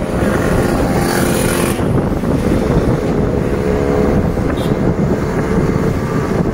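A motor vehicle's engine running steadily, under heavy wind rumble on the microphone.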